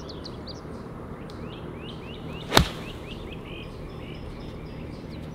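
Golf club swung through and striking the ball off the tee: a brief swish, then one sharp crack about two and a half seconds in. Small birds chirp throughout.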